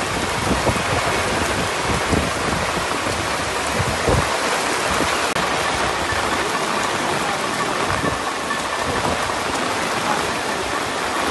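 Heavy rain falling steadily, an even, dense hiss of downpour.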